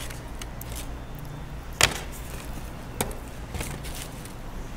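Handling noise as a loaded pizza slice is folded up in the hands: two sharp clicks, the louder about two seconds in and another about a second later, with a few fainter ticks over a steady low hum.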